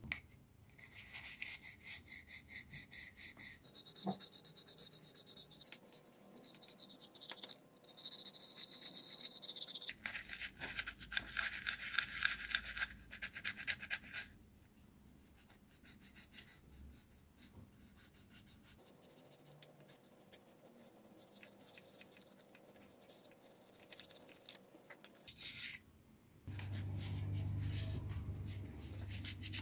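Toothbrush bristles scrubbing a wiper motor's end cap to clean off grime, a rapid scratchy rubbing in long spells with short pauses. Near the end the scrubbing gives way to a low rumbling noise.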